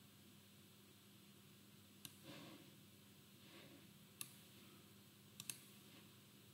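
Faint computer mouse clicks over near silence: a single click about two seconds in, another about four seconds in, and a quick double-click near the end.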